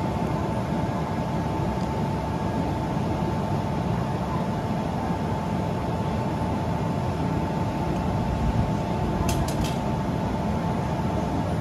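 Steady hum and low rumble from an E6 series Shinkansen standing idle at a station platform, with one constant mid-pitched tone from its onboard equipment. Three short high chirps come close together about nine seconds in.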